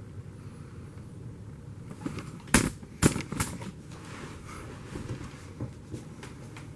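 Handling noise: two sharp knocks about half a second apart near the middle, followed by a few lighter clicks and taps.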